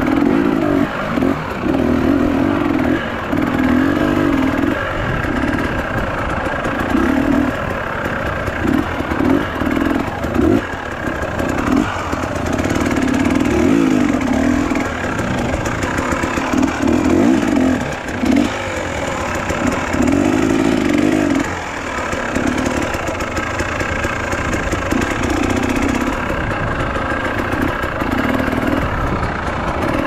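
Dirt bike engine on an enduro trail, its revs rising and falling in repeated short bursts as the rider opens and closes the throttle over rough ground.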